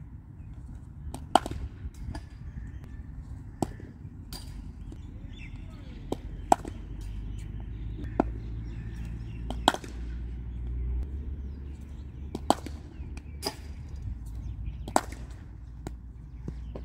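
Sharp wooden knocks of a cricket bat striking a leather cricket ball, mixed with the ball bouncing on a concrete practice strip, about ten knocks spaced a second or a few seconds apart, some in quick pairs of bounce then hit, over a low steady rumble.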